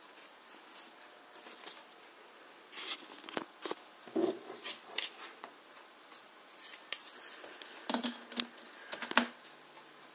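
Handling noise: paper rustling and scattered clicks and knocks as the instruction leaflet is moved aside and the massager and its cable are handled. The sharpest clicks come near the end, followed by a faint steady low hum.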